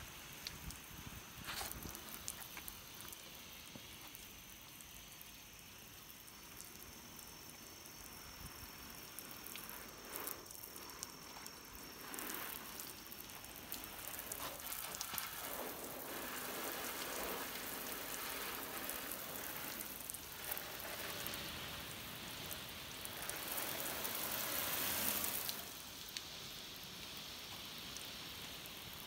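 Fine liquid spray pattering and hissing on a car's body panels and glass, coming in spells and loudest a little before the end.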